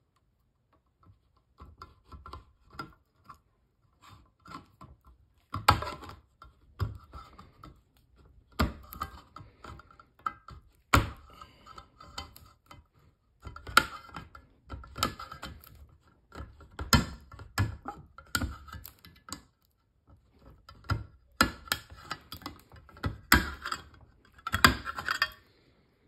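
Hook-style can opener blade of a GOAT modular multitool cutting a steel can lid: irregular metallic clicks and scrapes, with a louder sharp puncture every second or two. The hook is not catching the rim well, so the blade is mostly being jabbed through the tin with its point.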